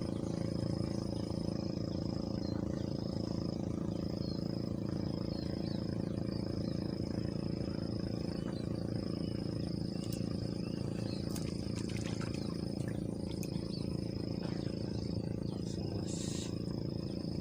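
Insects trilling in long, high-pitched runs broken by short pauses, over a steady low hum.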